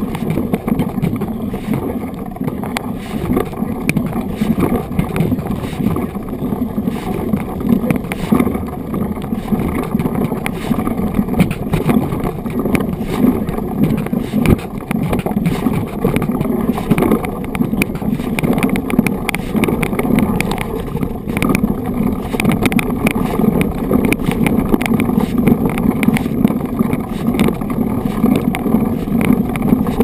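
Mountain bike's knobby tyres rolling over a dirt and gravel road: a steady rumble with constant small rattles and crunches, and wind on the microphone.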